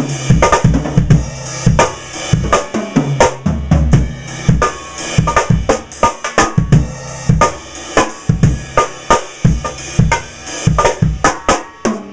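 Drum kit played in a continuous groove of rapid, sharp hits, led by a Pearl Firecracker steel-shell snare tuned very high and left undampened, with a bass drum underneath.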